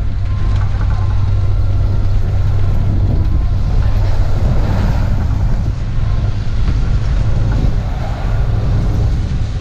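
Open-air trolley bus driving along, heard from a seat on board: a steady low engine drone with road and wind noise.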